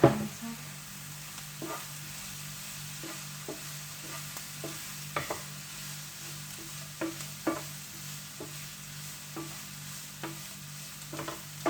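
Chopped chicken and onions frying in a little oil in a pan, sizzling steadily, with a utensil scraping and knocking against the pan every second or so as the mixture is stirred. A steady low hum runs underneath.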